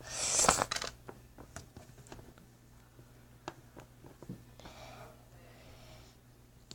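Slime being handled: a brief breathy rush at the start, then scattered small clicks and soft pops.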